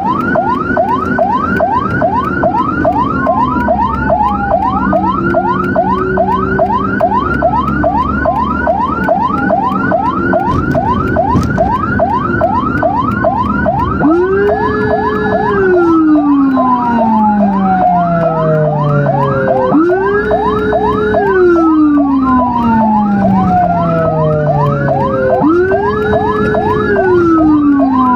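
Several emergency vehicle sirens sounding together, from the ambulance and its patrol escort. A rapid yelp sweeps up about four times a second over slower wails. About fourteen seconds in, a deeper wail joins; it rises quickly and then glides down over several seconds, repeating every five to six seconds.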